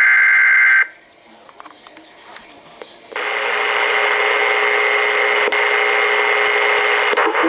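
NOAA Weather Radio broadcast from a weather radio receiver's speaker. The last burst of a SAME digital alert header, a harsh two-tone data screech, cuts off just under a second in. After a couple of seconds of faint hiss, a loud, steady, static-laden signal starts about three seconds in and holds.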